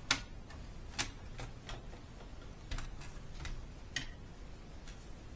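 Plastic clips of a laptop's palmrest cover clicking as the cover is pried loose and lifted off: about eight sharp, irregular clicks, the first the loudest.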